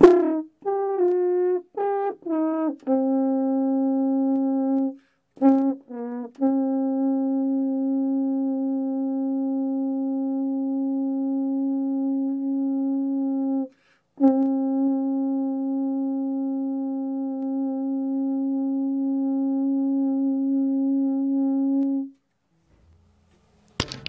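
Double French horn played solo: a few short separate notes, then long steady tones all on the same low-middle pitch. The two longest are held about seven seconds each, with a short break for breath between them.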